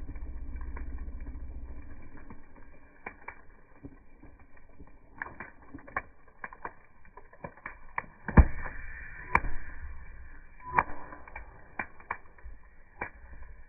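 Wood campfire crackling, with irregular pops and snaps; the loudest comes about eight and a half seconds in. The sound is slowed down with the super slow-motion playback, so the crackles come out deep and dull.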